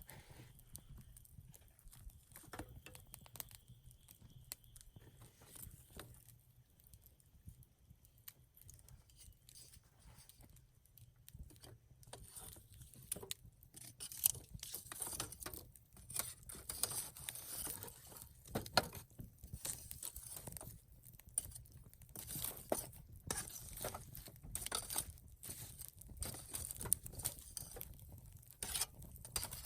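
Wood campfire crackling with irregular sharp pops and snaps, sparse at first and growing much busier about twelve seconds in.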